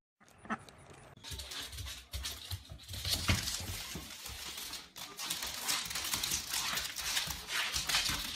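A dog scrambling on a hardwood floor: many quick clicks and scrapes of claws skidding on the boards, with a thump about three seconds in.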